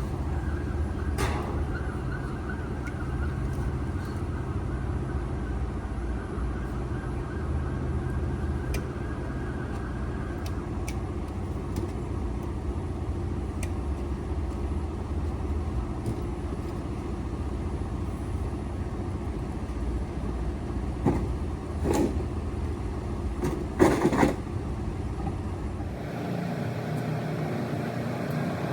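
A vehicle engine running steadily with a low rumble, with a few sharp knocks about a second in and again past the twenty-second mark; the rumble drops away near the end as a different, lighter mechanical sound takes over.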